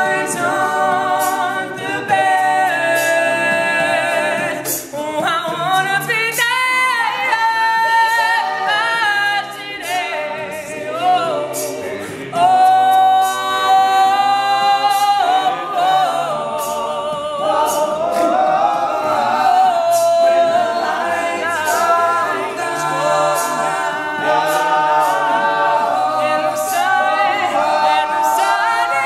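All-male a cappella group singing, a lead voice over the others' backing harmonies, with a steady beat of sharp clicks.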